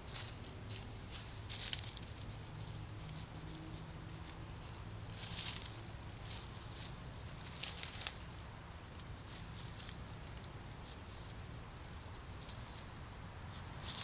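Irregular soft rustling and crackling, with louder bursts about five and eight seconds in, over a faint steady low hum.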